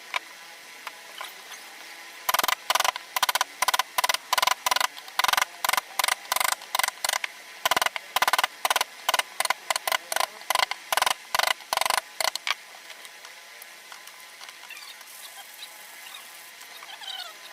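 Hand carving: a mallet striking a wood-carving chisel into wood in a quick, even run of blows, about three a second, stopping after about ten seconds.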